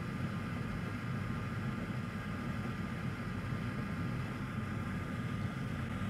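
Steady fan hum of a soldering fume extractor running.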